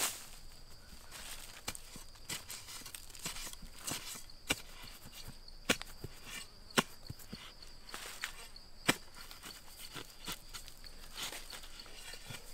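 A digging tool scraping and chopping into dry soil around a root, with soil crumbling and a few sharp knocks spaced a second or two apart.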